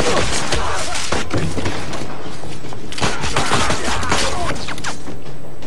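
Film battle-scene sound effects: a dense run of rifle gunfire mixed with thuds and crashes, thinning out about five seconds in.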